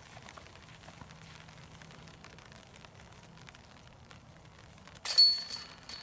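About five seconds in, a disc golf putt strikes the hanging chains of a metal basket. There is a sudden, loud jangle of chains that rings briefly and fades as the disc drops into the basket.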